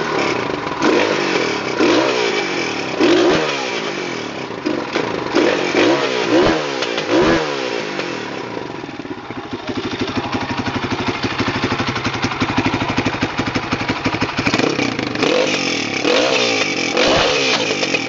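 Husqvarna SMR 610 supermoto's single-cylinder four-stroke engine revved in a string of quick throttle blips, its pitch shooting up and dropping back about once a second. About halfway through it runs more steadily for several seconds, then the blips return near the end.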